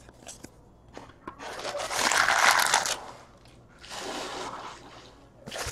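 Crinkling rustle of a trading-card pack's wrapper being handled, in two stretches: a longer one about two seconds in and a shorter, fainter one about four seconds in.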